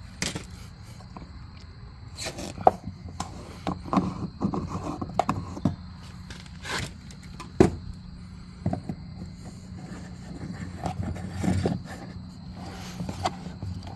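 Hands fitting an aftermarket part onto a UTV: irregular clicks, taps and scraping of plastic and metal parts, with a few sharper knocks.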